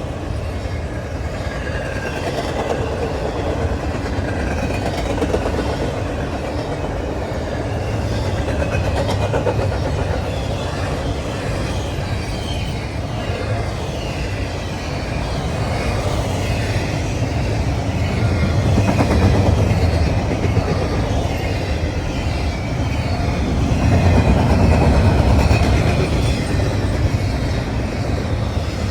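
CSX freight train rolling past on the main line: a continuous rumble and clatter of wheels on rail that swells twice, about two-thirds of the way through and again near the end.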